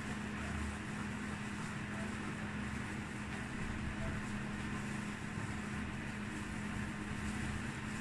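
Steady background hum with an even hiss, like a fan or motor running, unchanging throughout.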